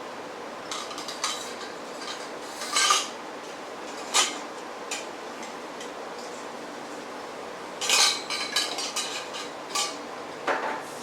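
Light clinks and clatters of small hard parts being handled, scattered at first and then a busier run of them about eight seconds in.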